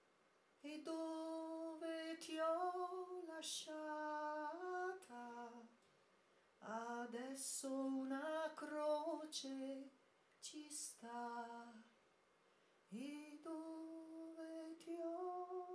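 A woman singing solo and unaccompanied into a microphone, a slow Italian song of the First World War: long held notes in phrases of a few seconds, with brief pauses between them.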